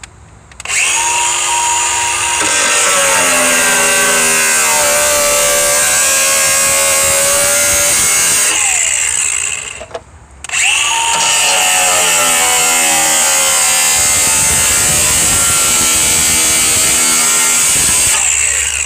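Angle grinder with a cut-off wheel cutting through a car's sheet-metal floor pan, in two long runs of about nine and eight seconds with a short pause between. Its pitch sags and wavers as the wheel bites into the metal.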